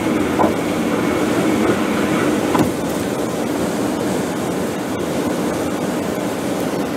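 Steady road and tyre noise of a car cruising at highway speed, heard from inside the cabin, with a low hum under it. There is a single brief click about two and a half seconds in.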